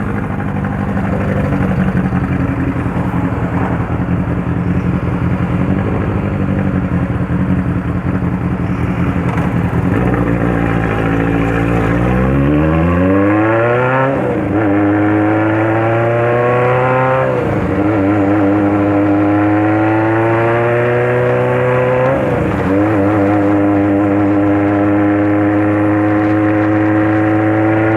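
Honda CBX 750 motorcycle's inline-four engine and exhaust rumbling. It runs steadily for about twelve seconds, then pulls away with engine speed climbing and falling back sharply at three upshifts, and climbs again near the end.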